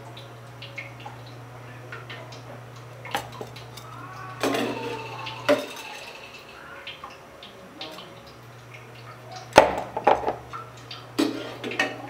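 Kitchenware clinking and knocking as food is handled by hand in a bowl of water. Louder clatters come about three seconds in, around five seconds, and again in the last two and a half seconds, over a low steady hum that stops for a few seconds midway.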